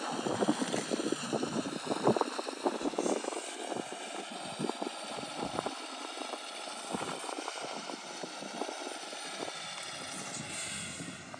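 Electric motors of a LEGO Technic 42129 Mercedes-Benz Zetros straining on a steep 40-degree ramp. Rapid irregular clicking and rattling of the drivetrain fills the first six seconds or so, then a steadier running sound. The truck fails to climb, which the builder puts down to tired batteries.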